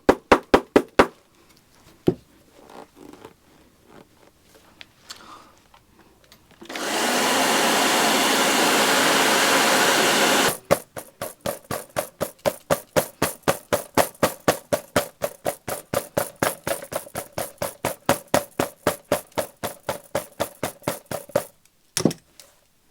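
Hair dryer blowing steadily for about four seconds, heating glue to soften it under an automaton figure's shoe. Before and after it comes a rapid, regular pulsing of about five strokes a second.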